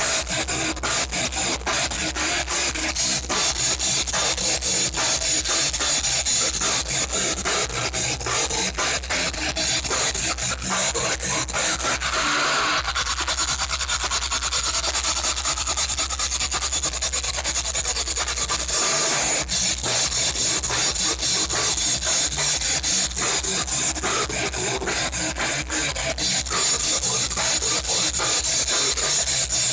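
Metal band playing live: distorted electric guitars, fast drumming and a singer into a microphone, heard as a dense, harsh wall of sound. The low end cuts out briefly about twelve seconds in and again near nineteen seconds.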